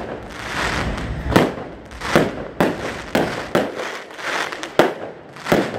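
Aerial fireworks display: a quick, irregular run of sharp bangs from bursting shells, about eight in five seconds, with noisy rushing swells between them.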